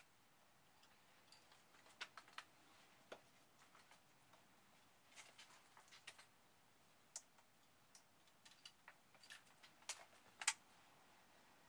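Near silence broken by scattered faint clicks and taps, with a few sharper ones about two seconds in and a cluster near the end.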